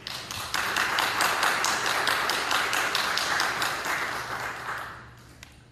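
Audience applauding: clapping breaks out suddenly, holds steady for about four seconds, then dies away about five seconds in.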